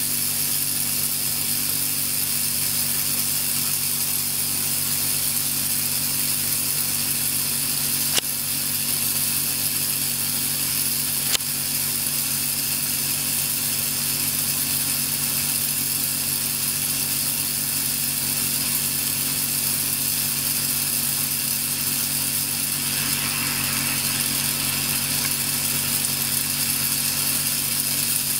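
Electric discharge crackling at an electrode tip in salted water: a steady sizzling buzz over a low hum. Two sharp pops come about three seconds apart, roughly a third of the way in.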